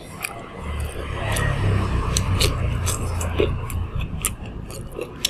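Close-up eating sounds: sharp mouth clicks and chewing. A low rumble of passing road traffic swells through the middle for about three seconds and is the loudest sound.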